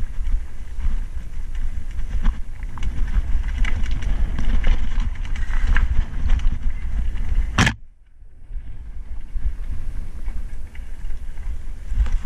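Mountain bike ridden along a rough dirt singletrack: wind rumbling on the microphone over tyre noise and the bike rattling on the stony ground, with scattered clicks. A little under eight seconds in, a sharp click, then the sound drops out briefly before building back.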